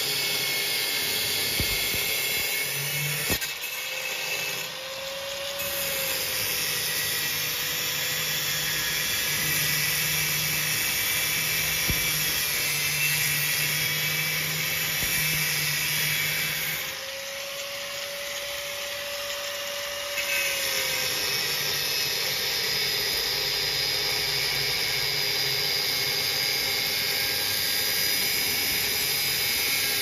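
Handheld angle grinder running and cutting into the hub at the bottom of a top-load washing machine's drum. The grinder cuts steadily, and twice, about four seconds in and again about seventeen seconds in, it eases off the cut: it goes briefly quieter and its motor pitch rises.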